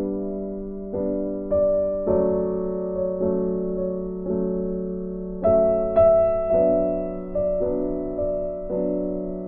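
Background music: a slow, gentle piano melody, each note struck and left to fade, with a brighter, louder note about six seconds in.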